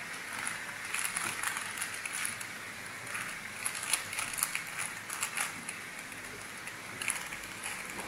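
Plastic 3x3 Rubik's Cube turned quickly by hand, its layers clicking and snapping in irregular quick runs. There is a brief lull about six seconds in.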